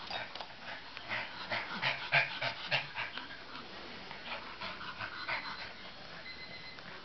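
Small dog breathing quickly in short, irregular puffs, several a second, as it wrestles a stuffed toy.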